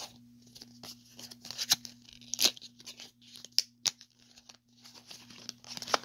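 Packaging being handled and opened: irregular crinkling and tearing with sharp clicks.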